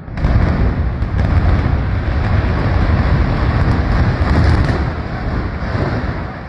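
Deep rumble of a building coming down in a demolition, starting suddenly and easing off after about five seconds.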